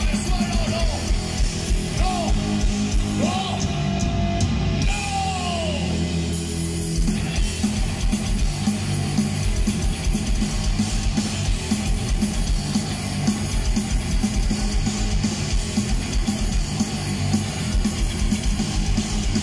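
Hardcore punk band playing live through a festival PA: distorted electric guitar, bass and drums, with shouted vocals. It opens on held chords and bending guitar notes, and about seven seconds in the full band comes in with a steady drum beat.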